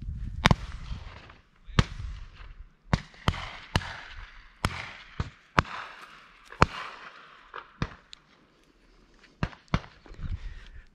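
Shotgun shots from other hunters around the field: an irregular string of more than a dozen sharp reports, the loudest about half a second in. Wind rumbles on the microphone in the first second or so.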